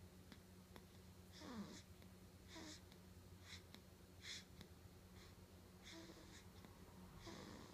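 Sleeping baby snoring faintly: a string of short snuffly snorts and sniffs, with a brief falling whimper about a second and a half in and another near the end.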